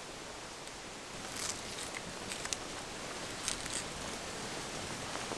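Wood fire crackling under a steaming pan of broth, a few sharp pops over a steady hiss.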